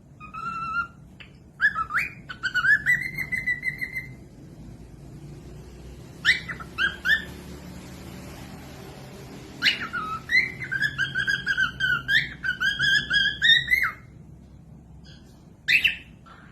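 Cockatiel whistling a song: several phrases of clear whistled notes, some gliding upward, separated by short pauses, with the longest and busiest phrase in the second half.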